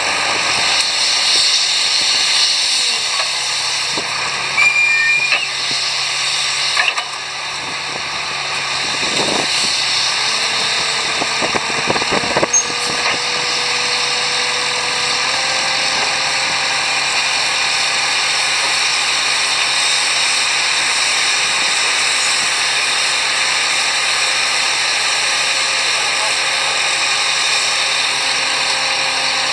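HFW water well drilling rig running: a steady, loud mechanical noise of hiss over engine hum, with a few sharp metallic knocks between about four and thirteen seconds in.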